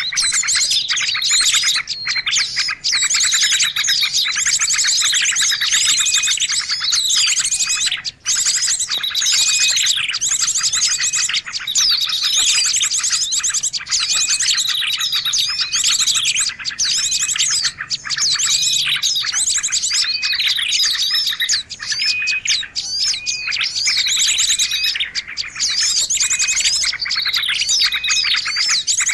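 Dense, unbroken chorus of many small birds chirping and twittering over one another, a bird-lure (pikat) recording made to draw small birds in.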